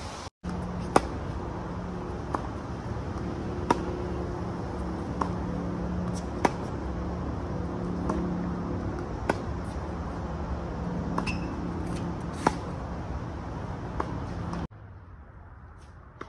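Tennis ball hit back and forth in a rally: a sharp pock about every second and a half, louder hits alternating with fainter ones from the far end of the court, over a steady background hum. Near the end the hum drops away and it goes much quieter.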